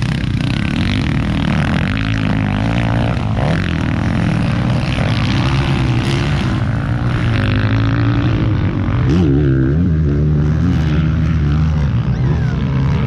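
Motocross dirt bikes racing around a dirt track, their engines revving up and down as the riders work through turns and jumps. The engine note keeps rising and falling, most clearly about nine seconds in.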